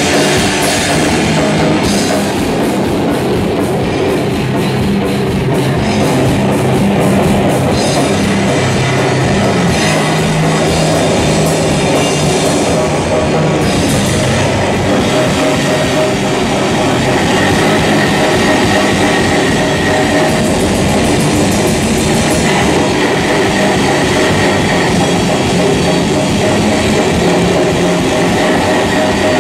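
Loud live heavy rock from a guitar-and-drums band: electric guitar and drum kit playing without a break.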